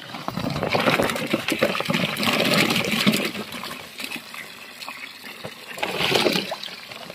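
Water from a hose running into a plastic tub as potatoes are tipped in from a sack, splashing and knocking into the water, loudest over the first three seconds. Another short burst of splashing comes near the end.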